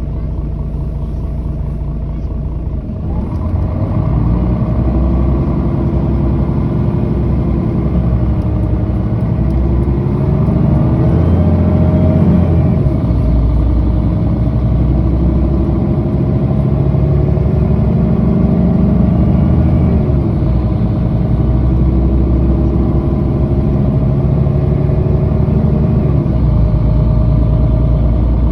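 Mercedes-Benz O530G articulated city bus's diesel engine pulling away and accelerating, rising in pitch with several drops back as the automatic gearbox shifts up.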